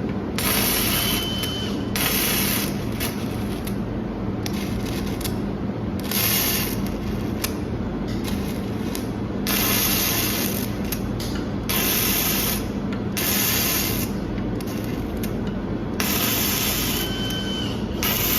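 MIG welding arc hissing and crackling in repeated bursts of about a second each, over a steady low hum.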